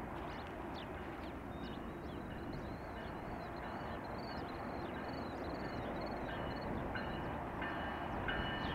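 Approaching BNSF diesel freight train, a low steady rumble that slowly grows louder. Near the end the locomotive horn begins sounding in broken blasts.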